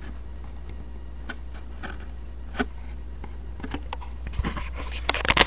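Spinning Beyblade tops with metal wheels, clicking and scraping as they knock against each other and the cardboard arena sides. Scattered single clicks build into a dense rattle of hits near the end.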